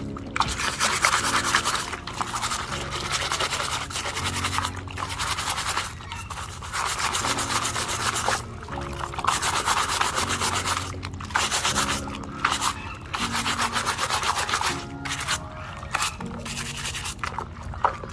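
A muddy plastic toy truck being scrubbed clean by hand, in strokes of rubbing lasting a second or two with short pauses between.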